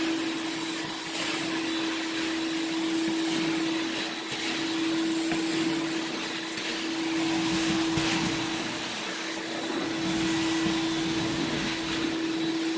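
Portable carpet extractor's vacuum motor running with a steady hum while the wand sucks water out of the carpet. The rushing suction swells and eases every two to three seconds as the wand is pulled through each stroke.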